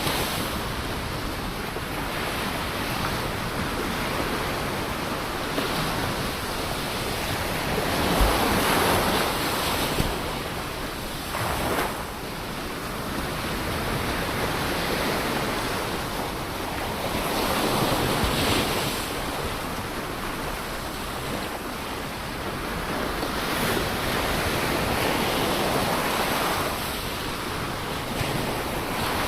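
Ocean waves breaking and washing on the shore, a continuous surf hiss that swells with each wave every several seconds.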